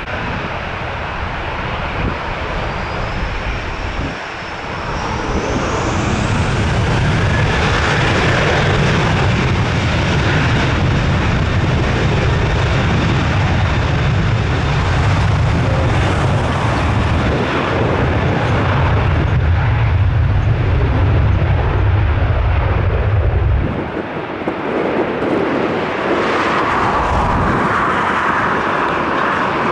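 Boeing 737 jet engines spooling up, with a whine rising about three seconds in, then running at high thrust with a steady low roar. The roar drops away abruptly about 24 seconds in, leaving a quieter engine whine.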